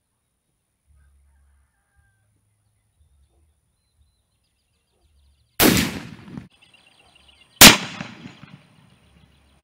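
Two rifle shots from a Finnish M-28/30 Mosin-Nagant in 7.62x54R, about two seconds apart, the second louder and sharper, each followed by a short echoing tail.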